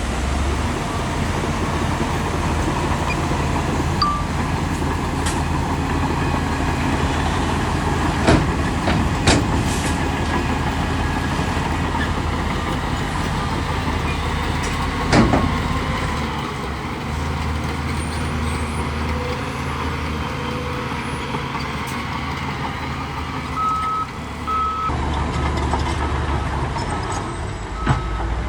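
Heavy diesel earthmoving machinery running steadily, with a few sharp metal knocks and short beeping tones near the end.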